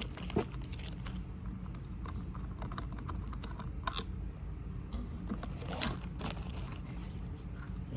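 Light clicks, taps and scrapes of tool parts being handled and fitted together during assembly, over a low steady hum.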